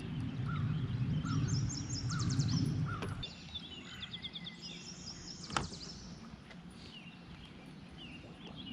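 Songbirds chirping and trilling in quick repeated phrases, over a low rumble that fades out about three seconds in. A single sharp click comes about five and a half seconds in.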